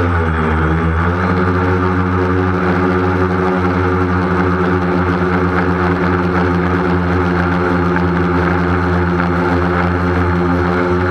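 Drone motors and propellers humming steadily, the pitch dipping briefly and coming back up about a second in as the throttle changes.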